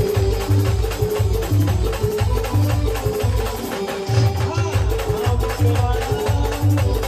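Brass band playing an instrumental passage: horns holding a melody over a heavy drum beat of about two strokes a second and rattling percussion. The drums drop out for a moment just before the middle, then come back in strongly.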